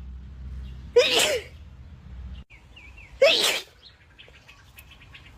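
A young woman sneezing twice, about two seconds apart: wet allergy sneezes, each a brief voiced catch breaking into a loud burst.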